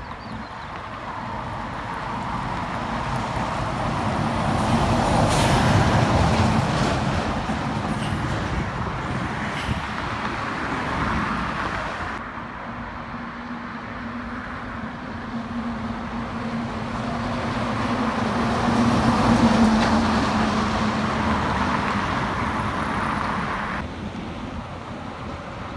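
Heavy trucks driving past on a highway, engine and tyre noise rising and fading twice. The first pass peaks about six seconds in, and the second, with a steady engine drone, peaks about twenty seconds in. The sound changes abruptly about twelve seconds in and again near the end.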